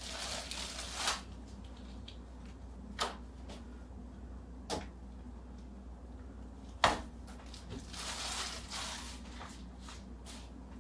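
Plastic bag of flour tortillas crinkling as tortillas are pulled out and laid down, with a few sharp knocks and taps in between. The loudest knock comes about two-thirds of the way through, and the bag rustles again shortly after.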